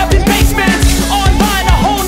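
Background music: a rap song with a steady kick-drum beat and a wavering melodic line over it.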